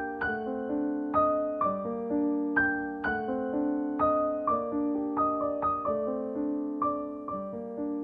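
Background piano music: notes and chords struck at an even, unhurried pace, each ringing and fading before the next.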